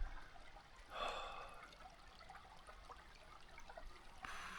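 Faint trickle of a shallow river. About a second in there is a brief breathy rush that fades away, and near the end a steadier hiss starts suddenly.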